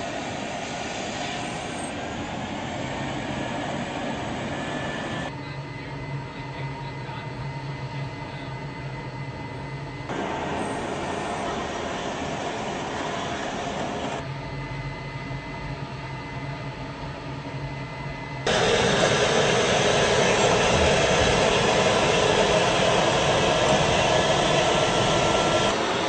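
M1A1 Abrams tank's gas-turbine engine running as the tank drives up into a transport aircraft's cargo hold: a steady whine and rumble. The sound changes abruptly several times and is loudest from about two-thirds of the way in.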